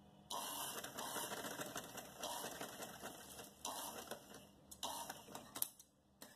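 Sewing machine stitching in several short runs with brief pauses between them, as pleats are sewn into the top of a sleeve.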